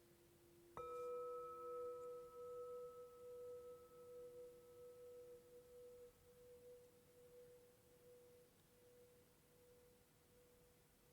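A quartz crystal singing bowl struck once about a second in, then ringing quietly with a pure, steady tone that slowly fades. A lower tone from an earlier bowl dies away beneath it.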